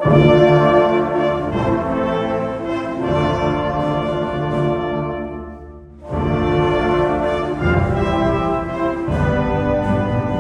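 Symphony orchestra playing with the brass to the fore. A loud sustained chord begins suddenly and dies away over about five seconds, and a second loud phrase comes in about six seconds in.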